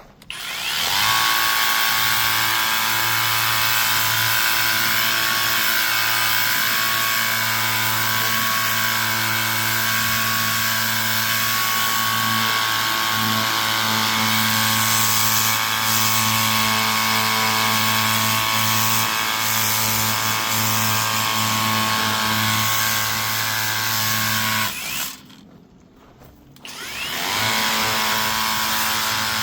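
Pressure washer running and spraying: a steady motor hum under a loud hiss of water. It cuts out about 25 seconds in and starts up again a couple of seconds later, as the trigger is released and pulled again.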